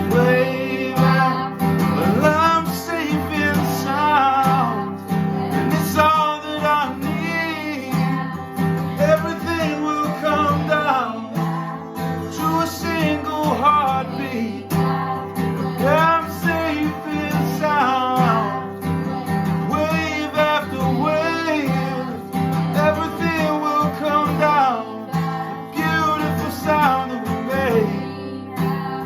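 Acoustic guitar strummed in a steady rhythm, with voices singing a repeated refrain over it.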